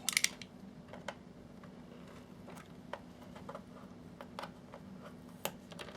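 Scattered light clicks and taps of a tool working at the plastic case of a small projector, over a faint steady hum.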